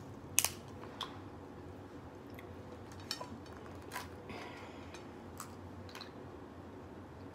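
Crab-leg shells being cracked and pulled apart by hand: a scatter of short sharp snaps and clicks, the loudest about half a second in, with some chewing between them.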